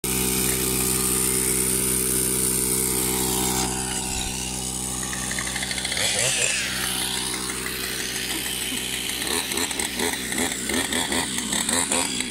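Portable electric air compressor running with a steady, unchanging motor note. A high hiss stops suddenly about three and a half seconds in, and an uneven pulsing joins the motor note in the last few seconds.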